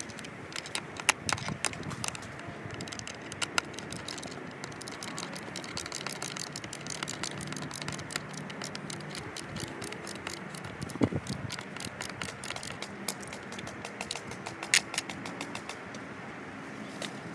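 Small metal clicks and rattles of skateboard truck hardware, nuts and bolts handled and threaded while the truck is mounted to the deck, with a few sharper clicks among them.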